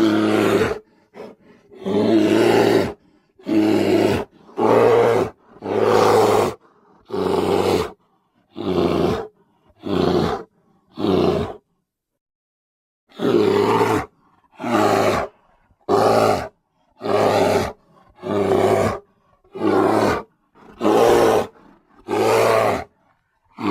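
Homemade Bigfoot sound effect: a string of short, deep roars, about one a second, with a pause of about a second and a half near the middle.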